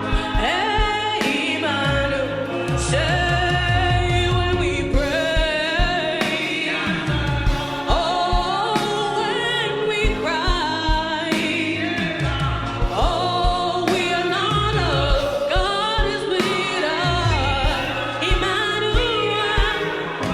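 Gospel praise song: voices singing over a band with a steady drum beat and bass.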